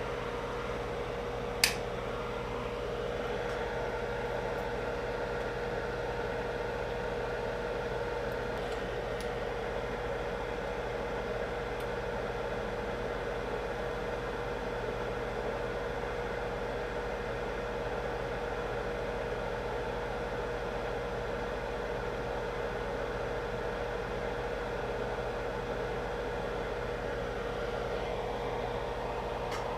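Steady machine whir with a constant hum, and one sharp click about two seconds in.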